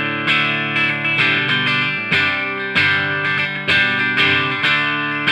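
Electric guitar (Fender Stratocaster) played through a guitar amp and speaker cabinet, heard close-miked by a Roswell Delphos large-diaphragm condenser microphone. It plays a phrase of picked chords and notes, with a new attack every half second to a second.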